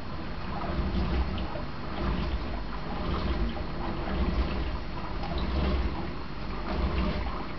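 Steady running-water noise of an aquarium's circulation, a low fluctuating rumble under an even hiss with faint small trickling clicks.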